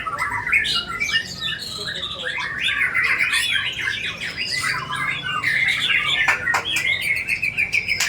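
White-rumped shama (murai batu) singing without a break: a fast, varied stream of sharp chirps, trills and rattling notes, its song packed with mimicked calls.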